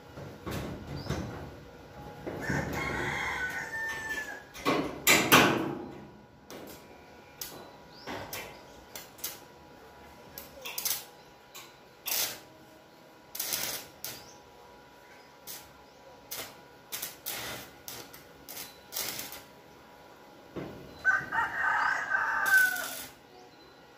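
A rooster crows twice, once a few seconds in and again near the end, among scattered sharp clicks and knocks, with one loud short knock about five seconds in.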